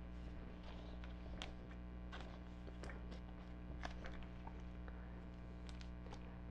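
Faint rustling and light clicks of a trading card being handled and slid into a plastic binder-page pocket, over a steady low electrical hum.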